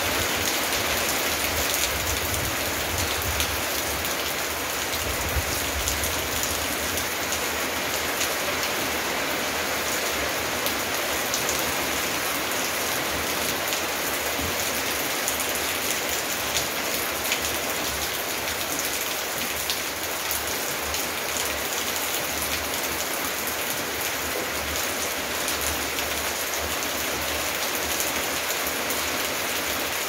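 Steady heavy rain falling on a garden and wet paving, with many close drops ticking against the constant hiss.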